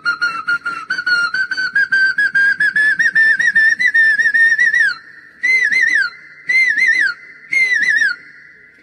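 A man whistling an imitation of an Asian koel's call: a fast run of short notes climbing steadily in pitch for about five seconds, then three short warbling phrases about a second apart.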